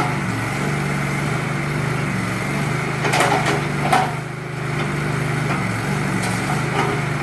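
Backhoe engine running steadily while wooden shed framing cracks and splinters, twice sharply about three and four seconds in.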